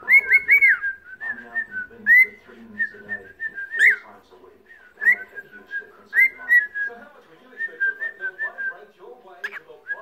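Cockatiel chattering and whistling: a run of warbling whistled notes broken by several loud, sharp chirps.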